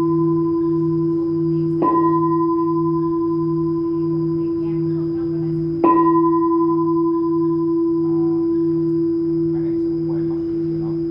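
Buddhist temple bell struck twice, about two seconds in and again near the middle, each stroke ringing on in a long, steady tone that slowly fades, over a low hum that throbs steadily underneath.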